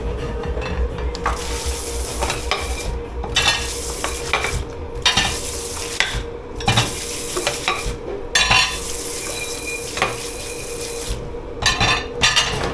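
Water spraying onto dishes in a commercial dish pit, cutting out briefly every second or two, with scattered clinks of crockery and cutlery and a steady machine hum underneath.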